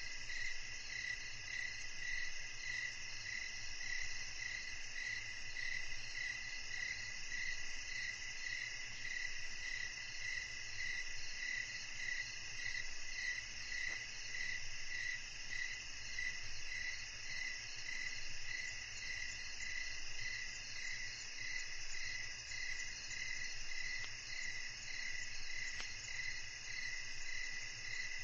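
Evening chorus of crickets and other insects: several steady high-pitched trills layered together, one of them beating in a regular, even pulse.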